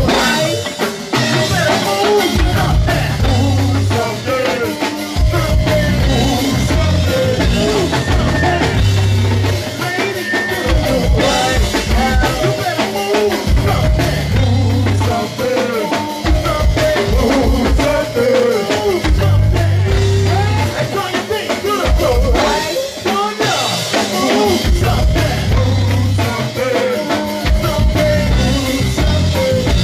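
A live go-go band playing loud: drum kit and hand percussion of timbales and congas over a heavy bass line, with a vocalist on the microphone.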